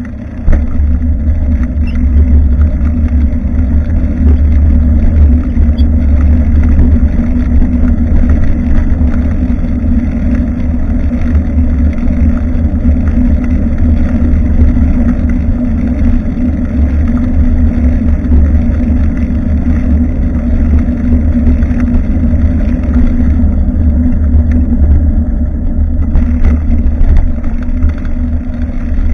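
Steady low wind rumble and road noise on a bicycle-mounted action camera's microphone while riding, jumping louder about half a second in.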